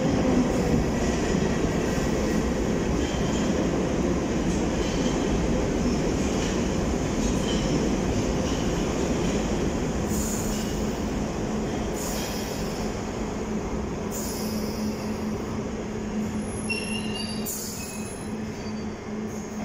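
A London Underground 1973 Stock tube train runs in along the platform. Its wheels and motors make a dense, steady rumble that slowly fades as it brakes, with a low hum joining about halfway and a few sharp knocks. Short high squeals come near the end as it comes to a stop.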